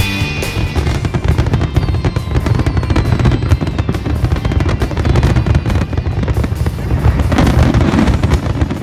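Fireworks going off in a dense, rapid barrage of bangs and crackles, with music playing underneath.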